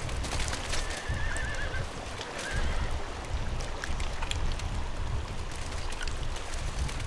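A horse whinnying: one trembling call about a second long, then a short second call, over a steady low wind rumble with scattered clicks.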